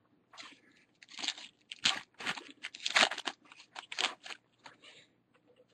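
Baseball trading cards and packs being handled: an irregular run of dry rustling and crinkling scrapes, busiest in the middle.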